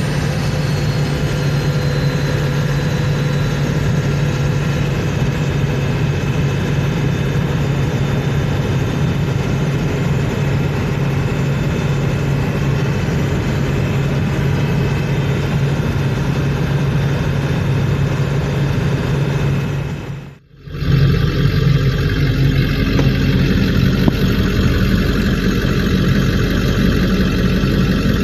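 Ford 7.3 Powerstroke V8 turbodiesel running, with a thin, steady turbo whistle over the engine; the whistle comes from a boost leak, air escaping from the turbo. About twenty seconds in the sound briefly drops away, then the same kind of engine sound carries on.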